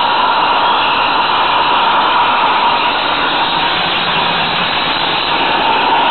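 Steady rushing running noise from a 16 mm scale garden railway train, heard from a camera riding on it, with a faint low hum in the middle while it passes through a tunnel.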